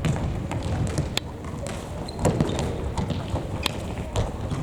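Futsal play on a gym floor: ball kicks and thuds, running footsteps and scattered sharp knocks, echoing in a large hall.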